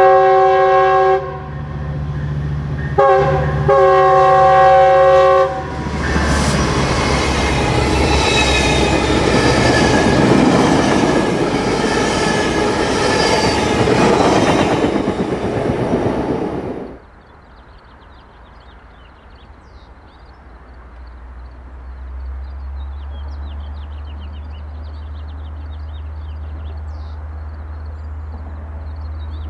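Train's multi-chime air horn sounding a long, a short and a long blast, the end of the grade-crossing signal. The train then passes close with loud rumbling wheel-and-rail noise that drops off suddenly about 17 seconds in, after which a lower rumble slowly builds.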